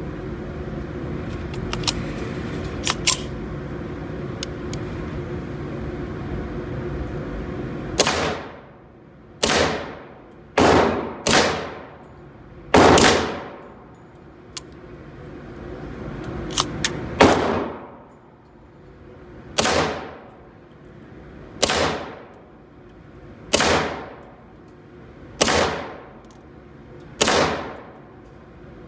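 A .17 HMR rifle with a Bear Creek upper fires about eleven semi-automatic shots, the first ones a second or so apart and the later ones about every two seconds. Each shot echoes in an indoor range booth, and the rounds feed from a 3D-printed 35-round magazine. For about the first eight seconds, before the shooting starts, there are only a few light clicks over a steady background rush.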